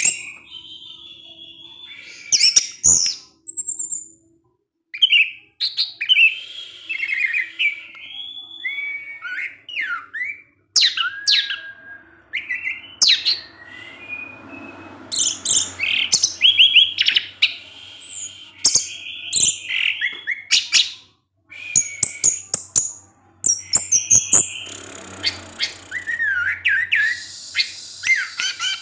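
Orange-headed thrush singing a rapid, varied song of short whistled and chattering phrases, broken by brief pauses, with a few sharp clicks.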